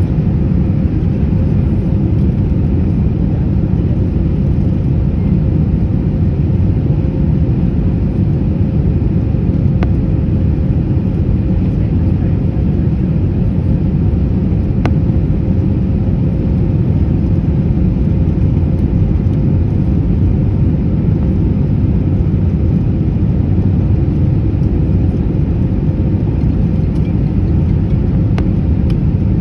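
Steady cabin noise aboard an Airbus A321: a loud, even rumble of engines and airflow with a steady hum above it, unchanging throughout.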